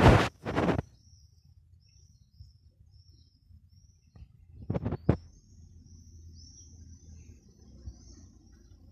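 Small birds chirping in quick short calls in the background, with loud brief scraping knocks twice at the very start and twice again about five seconds in.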